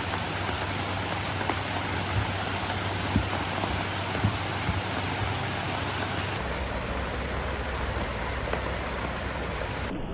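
Steady rain falling, an even hiss with scattered drop ticks; the sound shifts slightly in tone about six seconds in.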